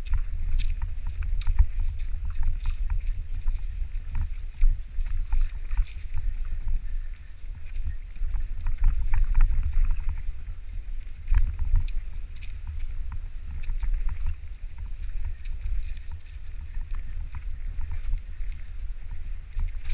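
Mountain bike riding down a rocky trail: wind buffeting the microphone as a steady low rumble, with frequent sharp clicks and rattles from the bike over the rocks.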